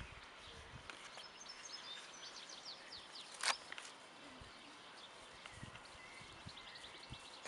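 Quiet outdoor ambience with a small bird chirping in quick high trills, in two spells, and one sharp click about three and a half seconds in.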